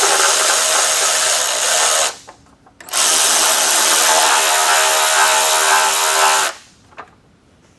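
Cordless power drill/driver running in two bolts, in two steady runs of a couple of seconds and about three and a half seconds with a short pause between; the bolts are being run in only loosely, not tightened.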